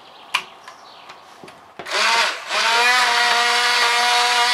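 Immersion (stick) blender puréeing chunky vegetable and mushroom soup in a saucepan. There is a single sharp click about a third of a second in. The motor starts about two seconds in, dips briefly, then runs with a steady high hum.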